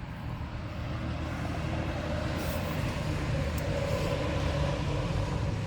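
A road vehicle passing in the background: a low rumble that swells and then eases off.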